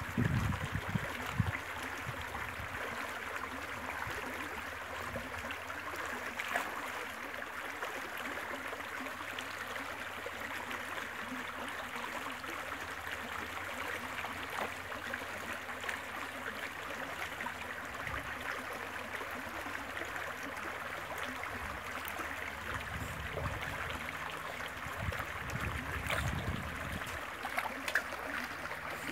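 Shallow stream rippling steadily over stones. A few low bumps come near the start and again near the end.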